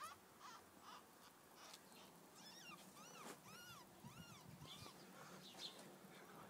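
Young ferret kits squeaking in the nest: a faint series of short, high, arching squeaks, coming thickest in the middle.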